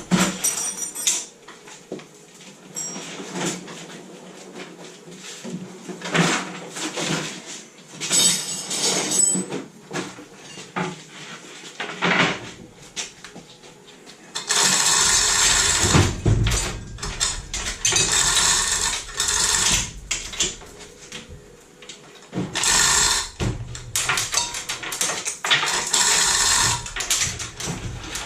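Workshop noises from work on a classic Mini's engine: scattered clanks and knocks of metal tools and parts. Two longer, louder stretches of steady mechanical noise come about halfway through and again near the end.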